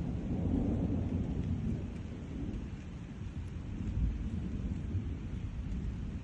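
Thunder rumbling over steady rain, the low rumble swelling about half a second in and again near four seconds.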